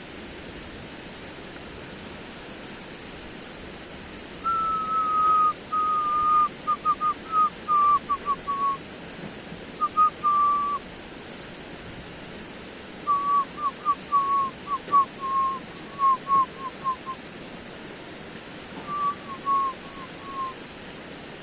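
Clear whistled notes in four runs over a steady hiss. In each run the notes start long, then drop a little in pitch and quicken into short notes.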